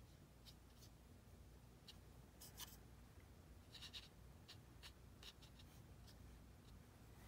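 Faint, light scratching of a watercolour brush stroking and dabbing on paper: many short scrapes at irregular intervals over a low steady hum.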